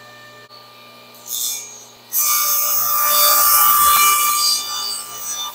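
Table saw blade cutting through a hardwood picture-frame piece on an angled crosscut sled for a mitre. A short scrape about a second in, then a loud rasping cut with a steady whine starting about two seconds in and lasting about two and a half seconds before it tails off.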